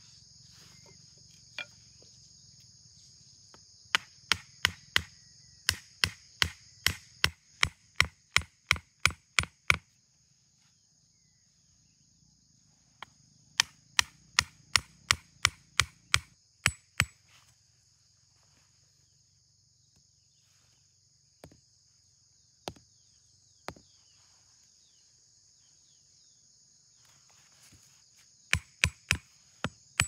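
Machete striking wood in quick runs of sharp knocks, about three a second: a long run about four seconds in, another near the middle and a short one near the end, with a few single knocks between. A steady high drone of insects runs underneath.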